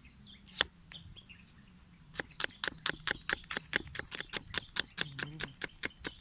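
A single sharp click, then from about two seconds in a quick, even run of sharp clicks or taps at about five a second.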